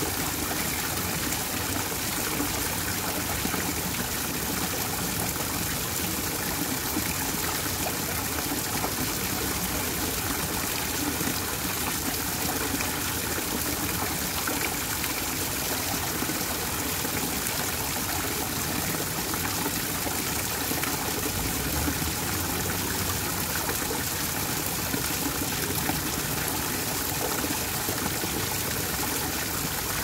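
Small garden waterfall: several thin streams of water falling down a rock face and splashing steadily into a shallow lily pond.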